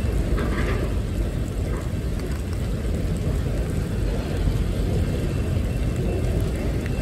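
Freight train of autorack cars rolling past, a steady low rumble of steel wheels on rail.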